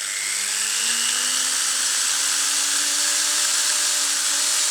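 Electric drill with a 4 mm bit spinning up at the start and then running steadily, widening a hole in the hard plastic strain-relief piece of a MagSafe charger cable.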